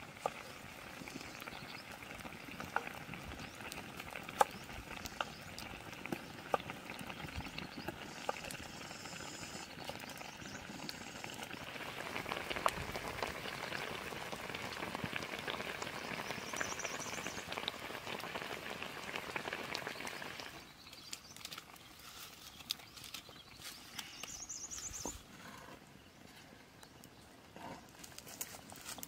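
Wood fire crackling with sharp snaps, and from about twelve seconds in a louder steady sizzle of fish frying in hot oil. A little after twenty seconds the sizzle stops and only quieter scattered clicks remain.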